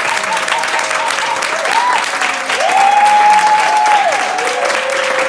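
Audience applauding, a dense steady clatter of clapping, with several long whooping cheers that rise, hold and fall over it.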